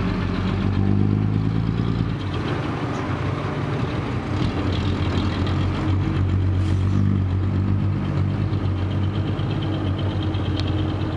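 Heavy diesel engine running steadily, its note changing slightly about two seconds in.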